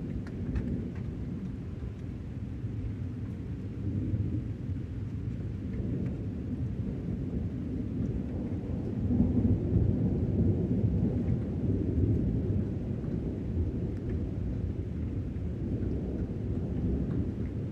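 Distant thunder rumbling continuously from a lightning storm, swelling louder about halfway through.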